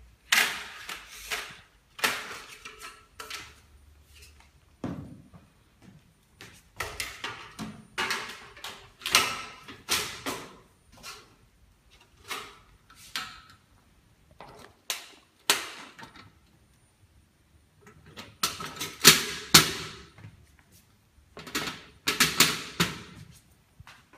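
Irregular clatter of sharp clicks, knocks and rattles as CPC reflector mirror plates and their clips are fitted by hand under the glass tubes of an evacuated-tube solar water heater. The sounds come in short bunches with brief pauses, the loudest bunch a little past the middle.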